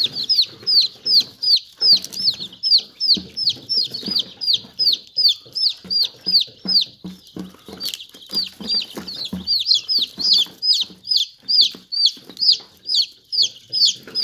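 Newly hatched chicks peeping loudly and continuously in the incubator, a fast run of short high chirps that each fall in pitch, about three or four a second.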